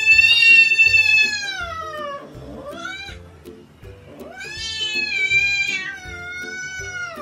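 A cat meowing in long, drawn-out calls. One is already under way, falls in pitch and stops about two seconds in; a short rising meow follows about three seconds in, and another long one runs from about four and a half seconds on.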